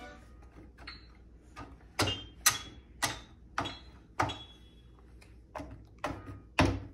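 Keys of a small MIDI keyboard struck one at a time by a toddler: about a dozen short, sharp hits at an uneven pace, each ringing briefly. The loudest come around two seconds in and near the end.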